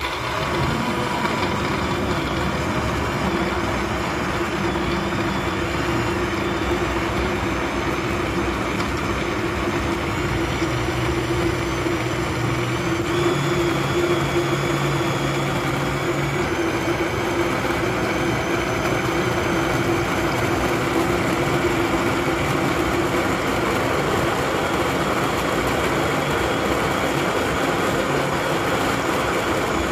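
Electric countertop blender switching on and running steadily, its motor whirring as it purées strawberries, banana, milk and yogurt into a smooth milkshake.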